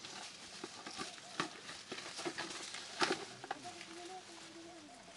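Leaves rustling and twigs and fruit stems snapping as fruit is picked by hand from a tree, with a sharp snap about three seconds in.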